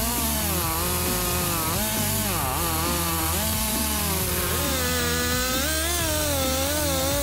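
Stihl MS260 two-stroke chainsaw cutting wood, its engine pitch wavering up and down as the chain takes and loses load, with one deep dip about two and a half seconds in.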